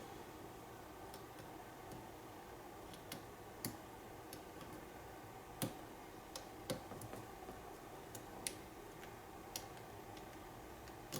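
Faint, irregular clicks of a lock pick and tension wrench working the pins inside an American padlock as it is single-pin picked, the pins setting one by one.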